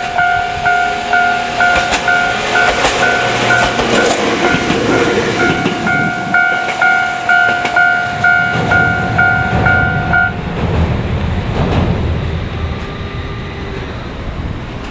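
Level-crossing warning alarm ringing about twice a second, stopping about ten seconds in, as a Gakunan Railway electric railcar passes, its wheels clacking over the rail joints, with a low rumble late on.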